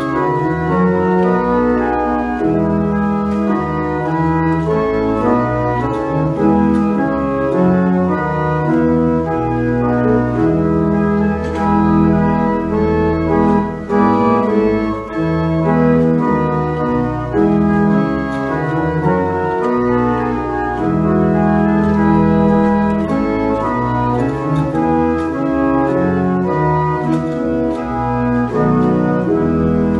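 Church pipe organ playing the closing voluntary: full, sustained chords over a strong bass, changing every second or so.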